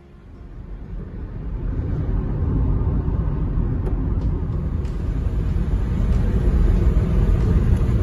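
A car driving along a road, heard from inside the cabin: a steady low rumble of engine and tyre noise that fades in over the first two seconds.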